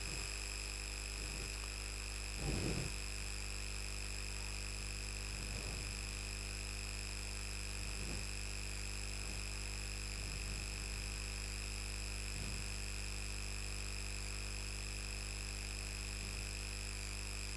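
Steady electrical mains hum with several thin high-pitched whine tones, under faint strokes of a marker drawing on a whiteboard, one stroke a little louder about two and a half seconds in.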